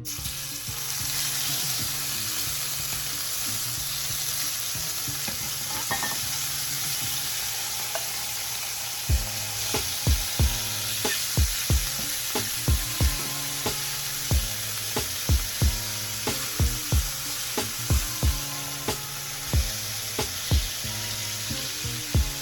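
Shrimp sizzling as they fry in a hot pot, a dense steady hiss that starts at once. From about nine seconds in, it is joined by irregular sharp knocks of stirring in the pot.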